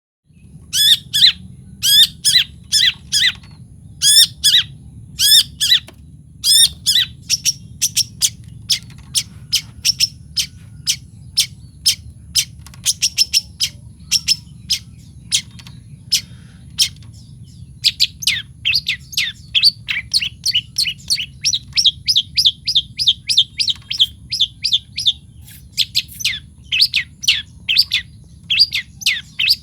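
Long-tailed shrike (cendet) calling: repeated sharp, high notes in short spaced bursts, turning into a fast, continuous chatter from a bit past halfway. A steady low hum sits beneath the calls.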